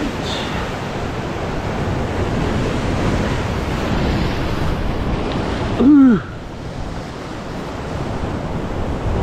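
Sea surf crashing and washing over rocks below a cliff, with wind on the microphone. About six seconds in comes one short, loud sound that falls in pitch, after which the surf is quieter.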